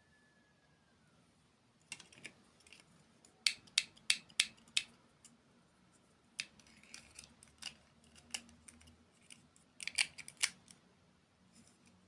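Close-miked crisp crunching of a person eating a hard, crunchy dessert: quick bursts of sharp crunches in several clusters, starting about two seconds in.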